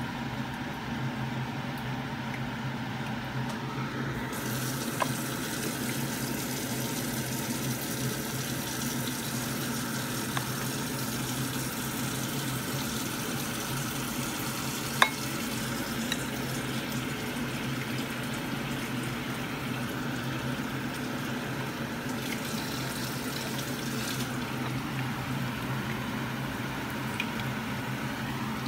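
A metal spoon clinks now and then against a ceramic bowl as batter is stirred and ladled over a steady low hum. A steady hiss joins about four seconds in and stops a few seconds before the end.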